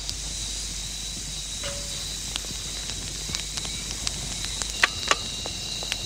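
Campfire wood burning, crackling with scattered sharp pops, two louder ones close together about five seconds in.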